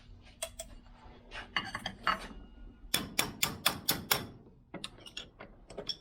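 Metal-on-metal clinking and tapping of hand tools and small steel parts on a workbench, with a quick run of about seven sharp strikes a little past the middle.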